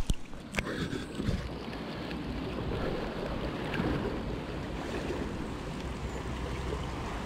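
Steady rush of a flowing river with wind rumbling on the microphone, and two sharp clicks in the first second.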